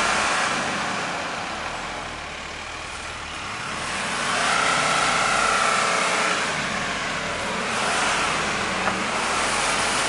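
Engine of a vehicle straining during a tow recovery out of deep snow, revving up about four seconds in and easing off again a few seconds later.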